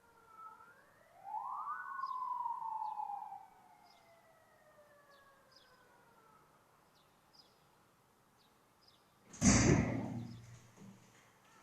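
A siren gives one wail, rising quickly for about a second and then falling slowly for several seconds. About nine seconds in comes a loud thump like a door slamming, the loudest sound here.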